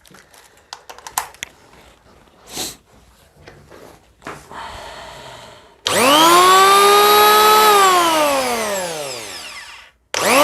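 CROWN CT14019X 710 W electric planer run with no load, with a few handling clicks first. Its motor and cutter drum spin up with a quickly rising whine, run steadily for about two seconds, then coast down with a long falling whine. It is switched on again just at the end.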